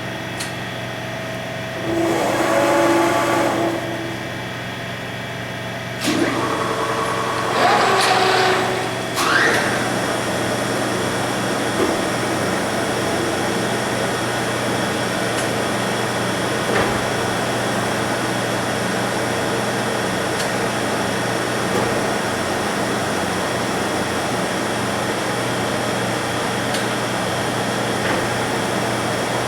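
Devlieg 43K-72 machine tool starting and running its programmed rectangle cut. There are changing motor sounds over the first ten seconds, with a sound rising in pitch about nine seconds in, then a steady running hum and hiss.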